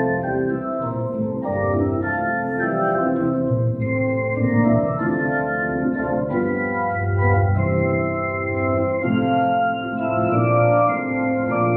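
Organ playing slow, sustained chords over bass notes, the chords held and changing every second or two.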